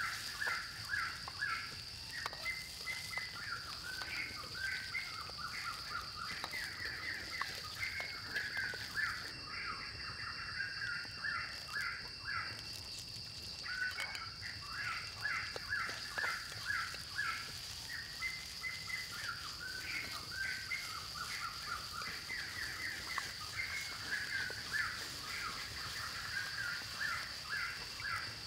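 Birds chirping and calling in quick repeated phrases, pausing briefly about halfway, over a steady high-pitched hum.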